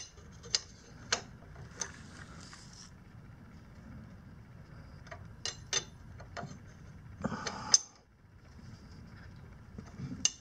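Metal wrench being worked on a motorcycle's oil drain plug as it is snugged down: scattered sharp metallic clicks and ticks, a few in quick clusters.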